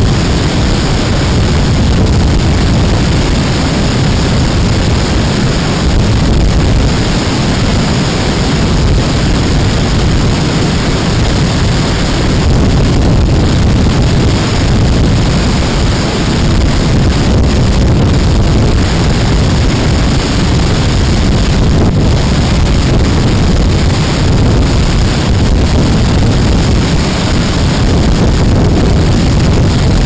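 Loud, steady rush of a large waterfall pouring down a rock face close by, with wind noise on the microphone.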